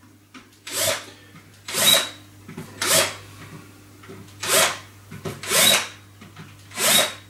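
Cordless drill with a cone countersink bit running in short spurts into holes in a wooden board, six brief bursts about a second apart, one per screw hole being countersunk.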